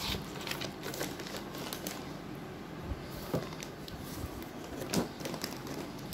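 Plastic mat and cardboard box packaging being handled: scattered light clicks and rustles, with a sharper knock about five seconds in.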